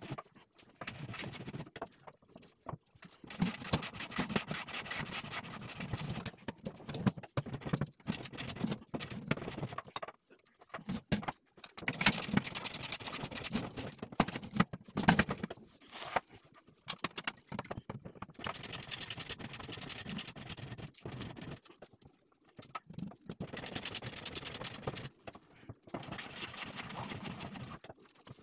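Irregular scraping, clicking and knocking of hand work on kitchen cabinet hardware as a pull-out wire basket is handled and fitted into the cabinet, in bursts of a few seconds with short pauses between.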